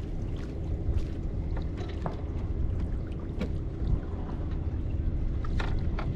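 Outdoor sea ambience on a fishing raft: a steady low rumble of wind and water, with a few light clicks and taps scattered through it.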